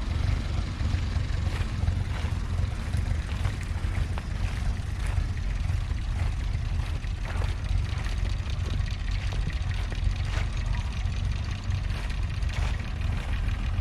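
Ferguson T20 tractor engine running steadily under load while pulling a plough, a constant low rumble.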